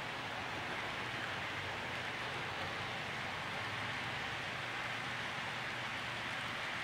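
HO-scale model freight train rolling past, a steady, even rushing of its wheels on the track.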